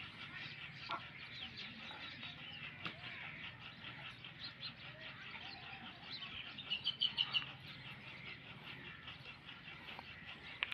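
Faint chorus of small birds chirping and chattering in quick, overlapping calls, with a few clearer whistled notes about two-thirds of the way through.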